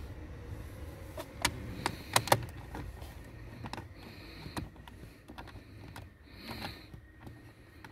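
Sharp plastic clicks and taps from hands fitting screws back by hand into the plastic cover under a car's glovebox, several close together about two seconds in, then fainter ones spread out.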